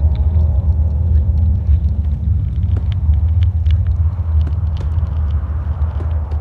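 Deep, steady low rumble, with scattered small clicks and ticks over it.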